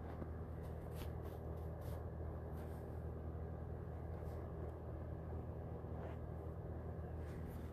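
Steady low hum of background noise with a few faint, short ticks scattered through it.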